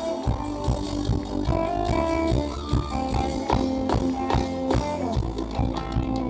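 Live reggae band playing without vocals: a steady drum beat over a sustained bass line, with held pitched notes above.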